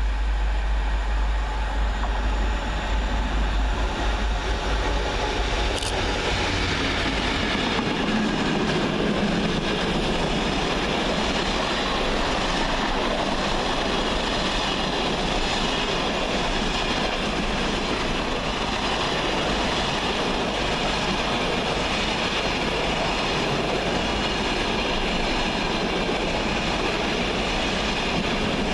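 DRS Class 66 diesel freight locomotive and its train passing at line speed. A deep engine rumble dies away about six seconds in, and a long rake of freight wagons follows, rolling past with a steady rumble and wheel clatter on the rails.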